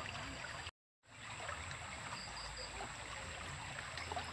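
Small stream flowing steadily, a soft, even water noise that cuts out completely for a moment about a second in. Three quick high chirps come about two seconds in.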